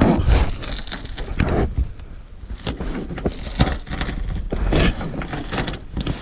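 Scattered knocks, clicks and scraping, typical of hands working on car interior trim, over a low wind rumble on the microphone.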